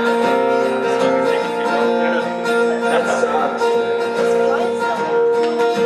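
Acoustic guitar strummed live, ringing out sustained chords in an instrumental passage of a song.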